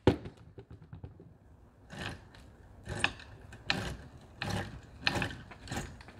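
Dry, unlubricated roller drive chain of a Burromax electric mini bike clicking and rattling on its sprockets as it is worked by hand. There is a run of fine ticks in the first second, then short clacks every half second or so.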